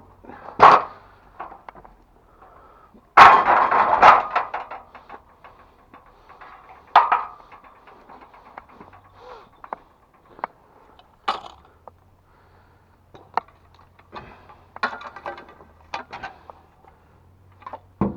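A series of separate knocks and thuds, with a loud burst of clattering about three seconds in that lasts a second or two.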